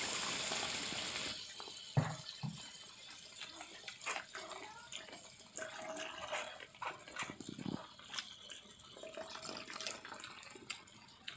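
Coconut milk streaming and dripping from a strainer of grated coconut into a hot wok of fried spice paste, splashing and sizzling, with scattered crackles. The pour is loudest in the first second or so.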